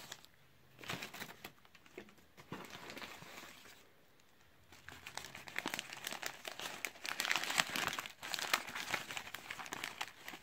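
Newspaper wrapping crinkling and rustling as it is unwrapped by hand from a small potted plant. It comes in short spells at first, pauses briefly around four seconds in, then crackles more steadily and louder from about five seconds on.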